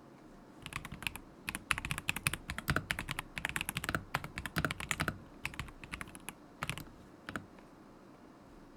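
Typing on a stock KZZI K75 Pro mechanical keyboard with Moment linear switches. There is a quick, dense run of keystrokes for about four seconds, then a few scattered presses, and the typing stops about three-quarters of the way through.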